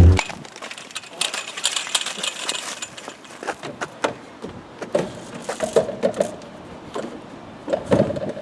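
Irregular knocks, thumps and clatter of someone clambering, jumping and landing on playground equipment, with a few short vocal sounds around the middle and near the end.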